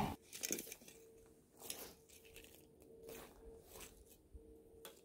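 Faint footsteps crunching in snow, a few separate steps spaced about a second apart, with a sharp click near the end.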